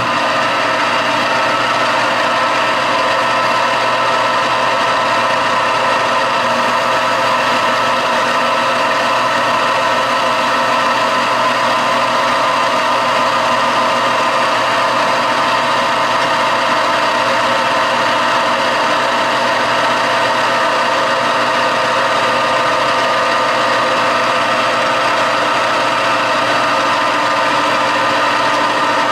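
Metal lathe running steadily under a cut, the tool turning a steel part with an even whine made of several tones. The steady sound suggests a smooth, clean cut.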